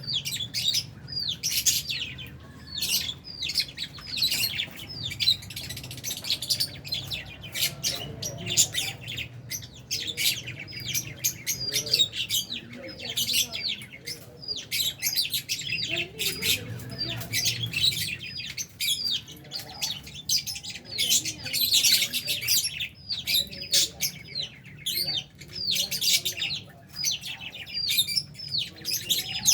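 A flock of lovebirds, albino and Fisher's, chirping and squawking continuously, many short high calls overlapping, with a low hum underneath.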